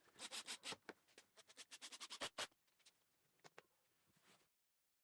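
Faint scratching, rubbing and quick clicks, dense for about two and a half seconds and then sparse, before the sound cuts off to dead silence near the end.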